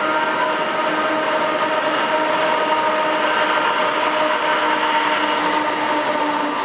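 BNSF diesel freight locomotive passing just below, then a string of empty coal hopper cars rolling by. A steady rumble of wheels on rail with several held tones running through it.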